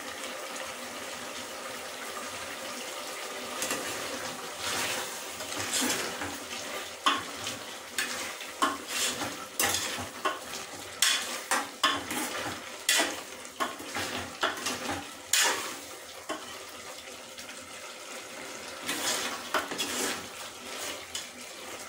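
A metal spoon stirring chicken curry in a metal pressure cooker pot, scraping and clinking against the sides, over the steady sizzle of the simmering curry. The clinks start about four seconds in, ease off for a few seconds, then come again near the end.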